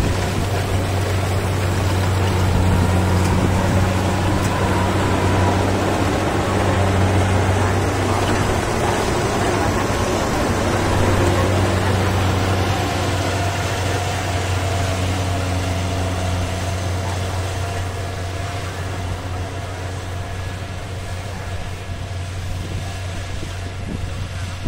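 Kubota combine harvester at work cutting rice: its diesel engine and threshing machinery running with a steady low hum. It grows fainter over the last several seconds as the machine moves away across the field.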